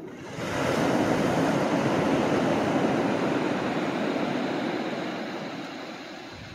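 Ocean surf washing onto the shore: a rushing swell that rises about half a second in and slowly fades away.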